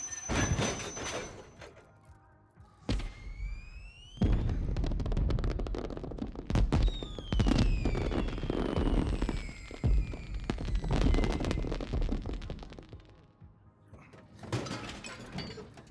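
Fireworks: a rising whistle about three seconds in, then a run of bangs with falling whistles and crackle until about twelve seconds in, and another burst near the end.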